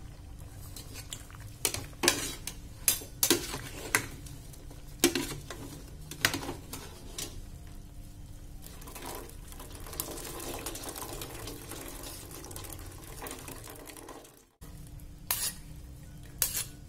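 Wire spider strainer clinking and scraping against a metal pot as boiled cassava leaves are scooped out, with a series of sharp metallic knocks over the first several seconds and two more near the end. A softer stretch of splashing and trickling in the middle, as water drains from the leaves back into the pot.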